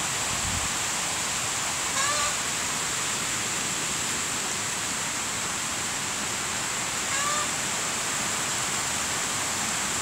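Steady rain falling on dense leafy vegetation, an even, constant hiss. A short animal call cuts through it twice, about two seconds in and again just past seven seconds.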